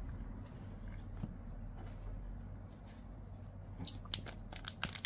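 Faint handling noise of AFL trading cards being shuffled by hand and laid down on a desk mat, with a few light clicks and taps near the end.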